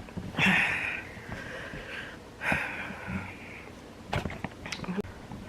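A woman breathing out heavily twice, each a long breathy exhale, then a few light clicks about four seconds in.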